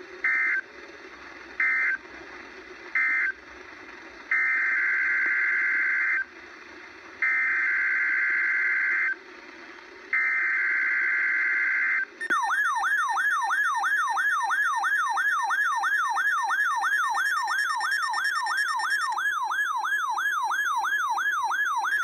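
Emergency Alert System data bursts over weather-radio static: three short end-of-message bursts, then three longer SAME header bursts that announce the next alert. About twelve seconds in, a loud siren-like alert tone starts, warbling up and down about three times a second.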